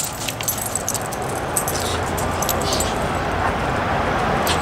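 A dog making noises while being played with, over scattered light clicks.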